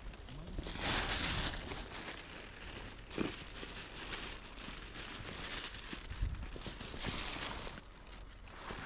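Thin plastic garbage bag rustling and crinkling as it is handled, in several bursts.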